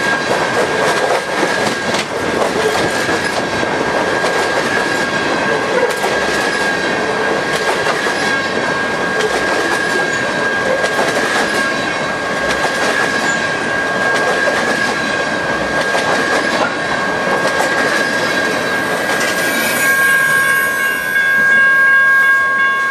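Train of empty coal hopper cars rolling past, wheels clicking and rattling over the rail joints. A steady high-pitched ringing tone runs under it throughout, and near the end it grows louder and a second, lower tone joins it.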